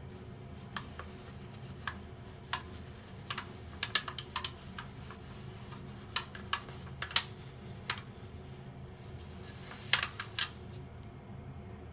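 Irregular sharp plastic clicks and taps from a drum washer-dryer's lint filter being handled, bunched in several quick clusters, over a low steady hum.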